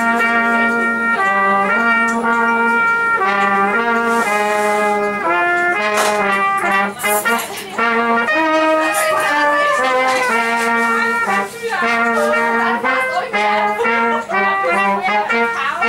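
Brass music: several horns playing a tune together in held notes.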